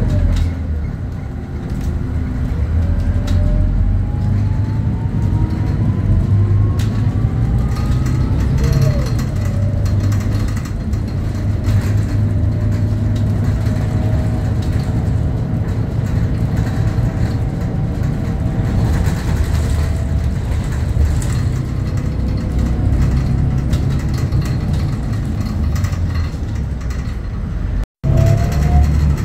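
Scania K94UB city bus heard from inside the cabin on the move: a steady low diesel drone and road rumble, with faint whining tones from the driveline that rise in pitch as the bus gathers speed. The sound cuts out for an instant near the end.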